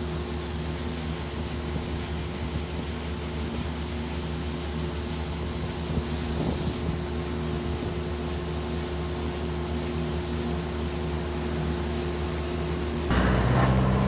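Steady motor-vehicle engine hum with a few fixed tones, with a brief swell about six seconds in as a vehicle passes. About a second before the end the sound cuts to a louder, deeper engine hum.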